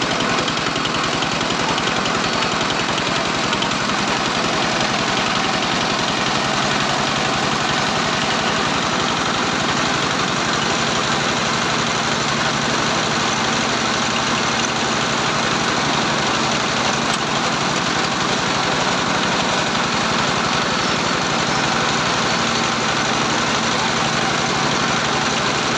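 Small single-cylinder diesel engine running steadily at an even, fast beat while driving a dough extruder.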